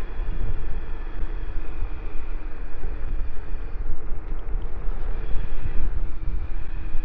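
Wind buffeting the microphone while riding a Trittbrett Sultan Plus electric scooter, over the steady whine of its electric motor.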